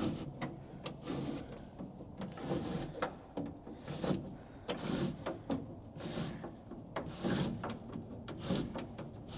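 Door window glass rubbing through a new rubber window-run seal as it is wound down, in a series of uneven scraping strokes: the new seal is a tight fit at this spot.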